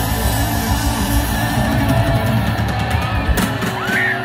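Live band playing loud rock music through an open-air PA, with a strong bass and electric guitar. Members of the crowd yell and whoop near the end as the bass drops away.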